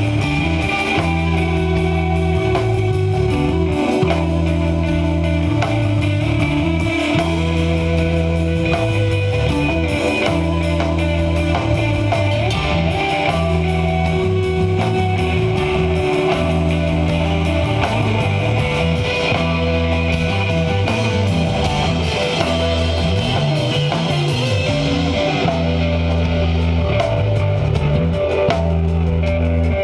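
Live instrumental desert rock jam: electric guitar lines over a bass that moves between sustained notes every couple of seconds, with a drum kit keeping time on the cymbals.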